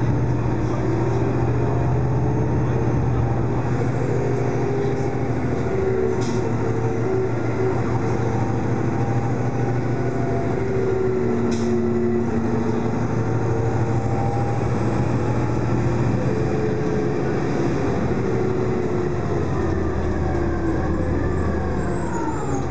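Cabin sound of a moving dieselized New Flyer C40LF city bus: its Detroit Diesel Series 50 engine and Allison automatic transmission drone steadily as the bus drives, with a couple of light clicks along the way. The engine note drops near the end.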